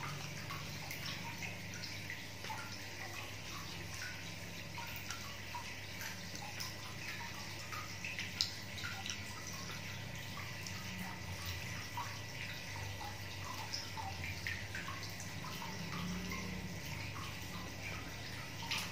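Faint chewing and mouth clicks of a person eating soft fried banana, over a steady background hiss and low hum.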